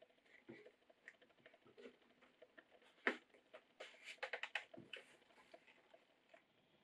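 Bushcraft knife being pushed into a stiff leather sheath and handled: soft leather rubbing and light clicks, with one sharp click about three seconds in and a quick run of clicks around four seconds in.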